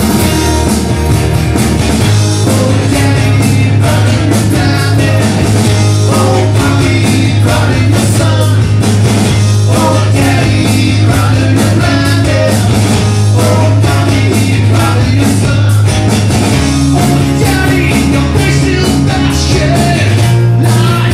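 Live acoustic rock band playing a slow song: acoustic guitars over a bass guitar that holds long low notes, changing only every several seconds, with drums.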